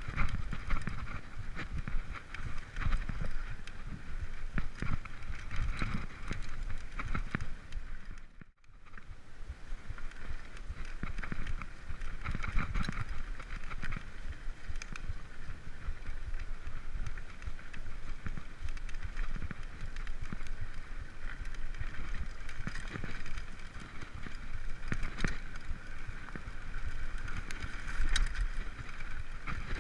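Mountain bike riding over a rough grassy trail: a steady rush of tyre and wind noise with frequent rattles and clicks from the bike, wind buffeting the microphone. The sound drops out for a moment about eight seconds in.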